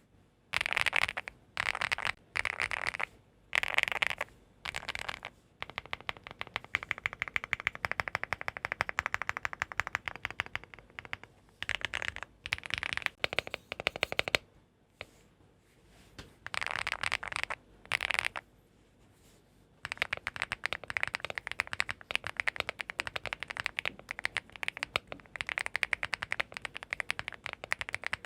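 Leobog Hi8 mechanical keyboard with HMX EVA linear switches and PBT cherry-profile keycaps being typed on. A few short, quick rolls of key clacks come first, then long stretches of fast, continuous typing, broken by a couple of brief pauses.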